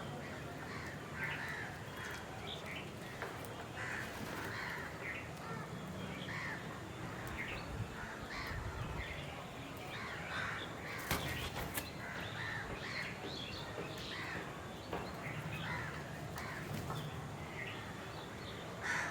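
Crows cawing again and again among other bird calls, over a low steady hum, with one sharp click about eleven seconds in.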